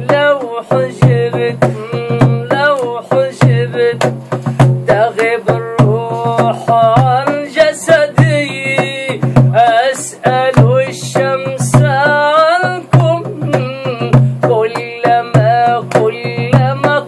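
Music for a Sufi devotional song: a wavering, gliding melody over a steady drum beat with sharp percussive strikes, with no sung words.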